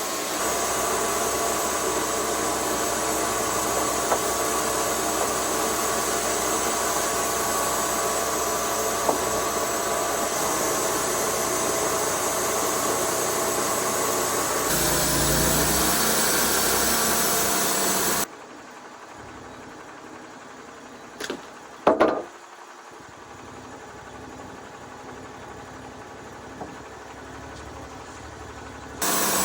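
TimberKing band sawmill running steadily, engine and blade together. About two-thirds through the sound drops off abruptly to a much quieter steady hum, with two short ringing clanks in it. The loud running comes back at the very end.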